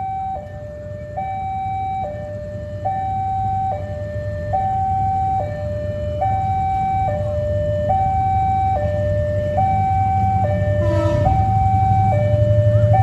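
Railway level-crossing warning alarm sounding a steady two-tone high-low electronic signal, the tones alternating just under once a second. A low rumble grows louder beneath it.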